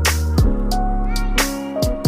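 Background music with a steady beat: deep bass, sustained keyboard notes and regular drum hits.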